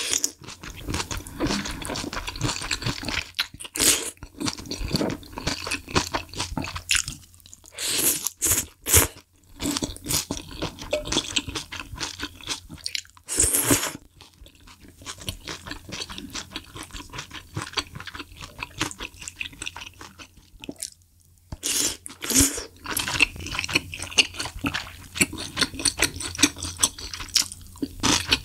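Close-miked chewing of malatang spicy hot pot: rapid crunchy bites and wet mouth sounds, broken a few times by short, louder slurps of noodles and broth.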